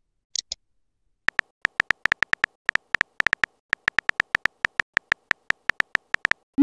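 Keyboard typing sound effect of a texting app: a quick, uneven run of short synthetic clicks, one per letter typed, after a pair of sharper, higher ticks about half a second in.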